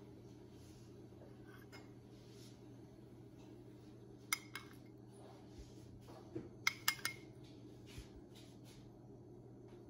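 Metal spoon clinking against ceramic dishes while spooning butter glaze: two sharp clinks about halfway through, then three quick ones and a last one near the end, over a faint steady hum.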